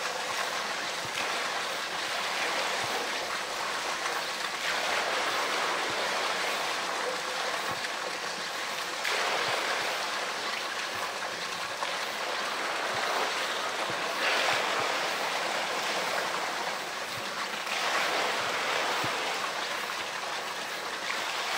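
Water pouring from a wall spout into a pool and splashing steadily, swelling a little louder every few seconds.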